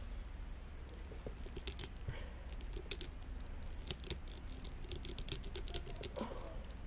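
Irregular small plastic clicks and taps of a miniature Rubik's cube being twisted and handled, with a few louder clicks around the middle.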